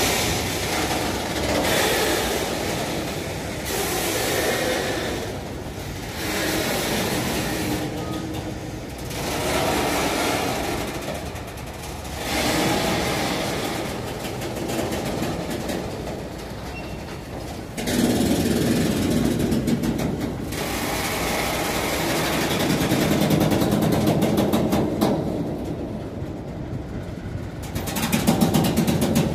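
Freight train of covered hopper wagons and tank wagons rolling past close by: steel wheels running on the rails. The noise swells and eases in waves every couple of seconds as the wagons go by, and is louder in the second half.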